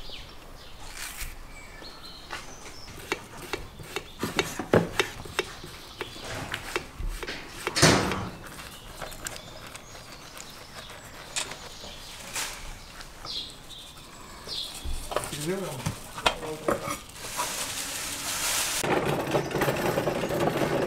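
Scattered knocks and clinks of cooking utensils against pots, with one loud clatter about eight seconds in. Near the end, fat starts sizzling steadily in the hot kazan as cooking of the plov begins.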